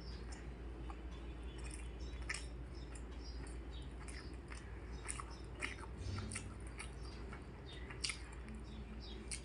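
A person chewing and eating a meal, with many short, irregular wet mouth clicks and smacks.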